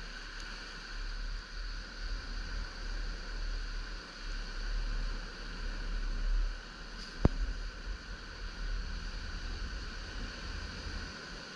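Wind buffeting the microphone with a low, uneven rumble over the steady hiss of small surf breaking on a sandy beach. One sharp click a little past seven seconds in.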